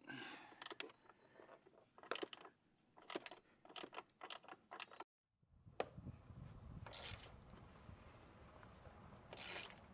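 Scattered metallic clicks and clinks of a wrench and ratchet working a motorcycle's saddlebag-mount bolt loose. After a short cut there is a low hum with two brief hisses.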